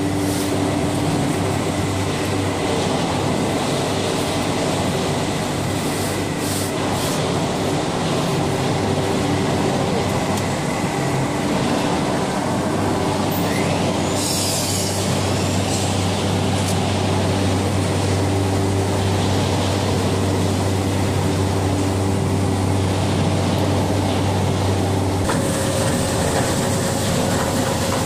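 Machinery of a wood sawdust block production line running: a loud, steady industrial din with a low hum and steady tones, a brief hiss around the middle. Near the end the low hum drops out and a higher steady tone comes in.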